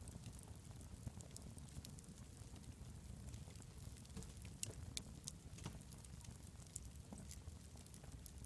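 Dying campfire crackling faintly, with sparse sharp pops and clicks over a low steady rumble, a few louder pops around the middle.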